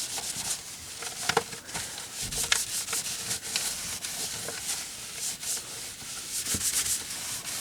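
The plastic body of a Quickshot Maverick 3 joystick being wiped clean of grime, a run of quick, irregular rubbing strokes.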